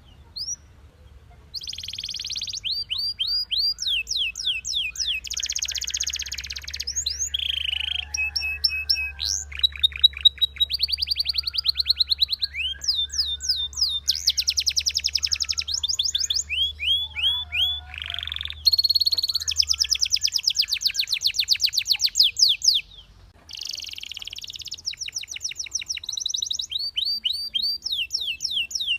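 Belgian canary singing a long song of fast trills and rolls: rapid strings of repeated high notes, phrase after phrase, some rising and some falling in pitch. The song breaks off briefly near the start and again about three-quarters through.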